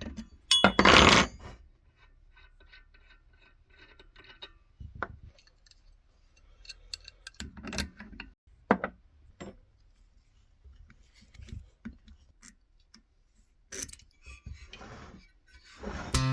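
Hand tools and small metal engine parts clinking and knocking, a scattered series of short clicks and taps, during the stripping of a two-stroke kart engine. About a second in there is a brief, louder rush of noise.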